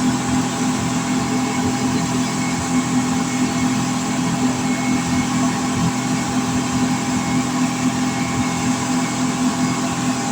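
A speedboat's twin outboard engines, together making up to 500 hp, running at speed: a steady drone whose pitch holds constant throughout.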